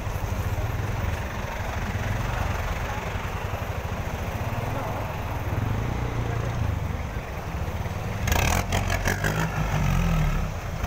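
City street traffic: vehicle engines running in a steady low rumble. A louder burst of noise comes about eight seconds in.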